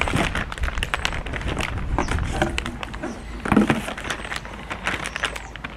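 Clear plastic packaging bag crinkling and rustling in the hands as parts are pulled out of a cardboard box, a quick run of crackles and rustles, over a low rumble of wind on the microphone.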